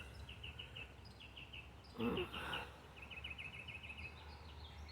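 A songbird giving runs of short, quick repeated chirps, with a brief lower sound about two seconds in.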